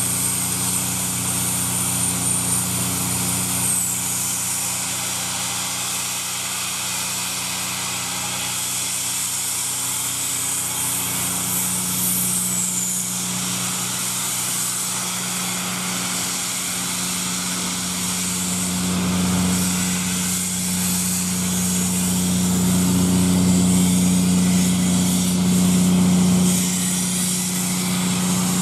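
LNER A4 steam locomotive moving off slowly, with a loud steady hiss of steam blowing from around its cylinders. Under the hiss runs a steady low hum that grows louder in the second half.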